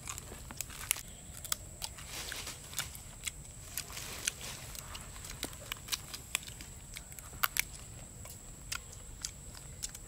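Grilled meat being torn apart and chewed: irregular crisp crunching and crackling clicks, about two a second, with some tearing.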